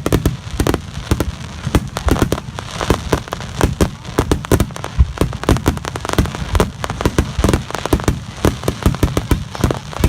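Fireworks display: a dense barrage of shell bursts, many sharp bangs a second, over a continuous low rumble.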